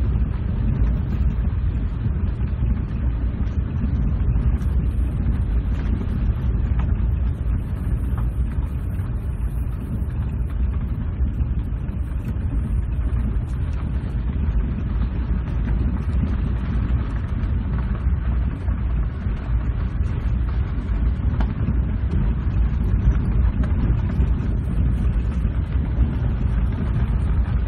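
Steady low rumble of a four-wheel-drive vehicle driving over a bumpy gravel road, heard from inside the cab.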